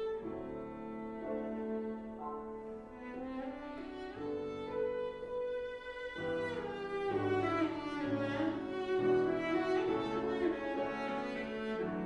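Cello playing a slow, lyrical melody in long bowed notes, with piano accompaniment.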